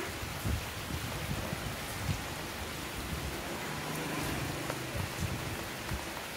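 Rain falling, a steady hiss with irregular soft taps of drops landing on broad taro leaves.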